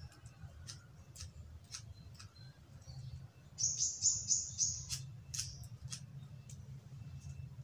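Scissors cutting hair: scattered single snips, with a quick run of about five loud snips near the middle, over a low steady hum.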